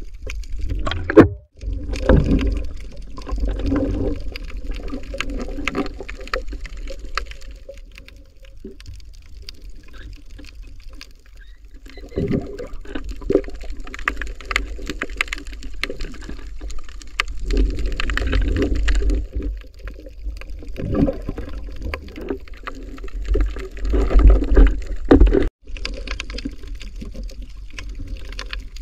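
Water rushing and bubbling around a camera carried underwater by a swimming spearfisher: a muffled, low rush that swells and fades in surges, with a few knocks.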